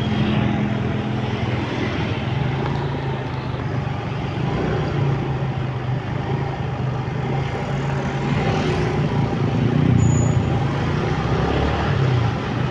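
Motorcycle being ridden at a steady pace: its engine running evenly under road and wind noise.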